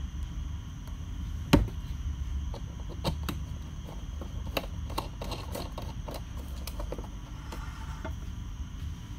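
Kitchen handling sounds over a steady low hum. A sharp knock comes about a second and a half in as the cream carton is set down on the granite counter. A run of small clicks and taps follows as the carton's plastic cap is handled and the ceramic baking dish is moved on the counter.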